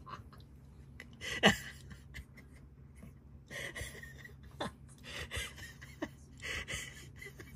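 A person's quiet, breathy laughter: several soft huffs of breath, the loudest about one and a half seconds in.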